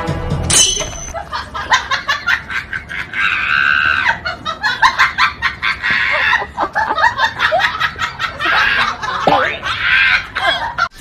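A person laughing and giggling in short, choppy fits.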